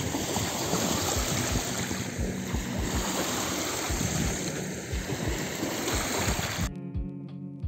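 Small waves lapping and washing over a pebbly sand shore, with wind rumbling on the microphone. Near the end the water sound cuts off abruptly and plucked guitar music starts.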